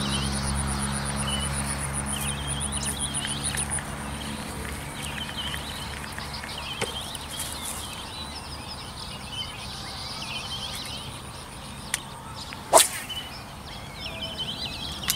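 Small birds chirping repeatedly and an insect trilling, over a passing vehicle's engine that fades out in the first few seconds. Near the end, a small click and then one sharp swish of a fishing rod casting a lure hard.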